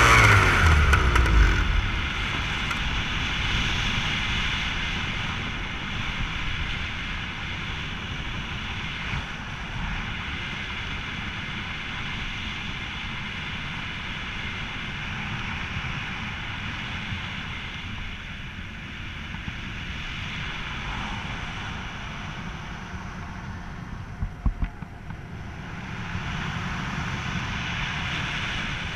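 Steady rush of airflow over the microphone as a powered paraglider glides with its engine off. It is louder and buffeting in the first two seconds, with a few short knocks about 24 seconds in.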